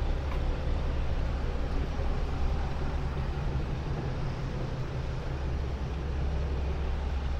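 Steady low rumble of city street noise, with traffic in the background.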